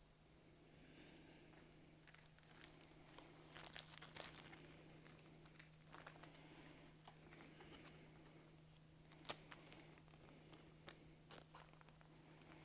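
Quiet crinkling and tearing of a foil trading-card pack wrapper, with scattered light crackles and clicks as the cards are handled; one sharper click about nine seconds in.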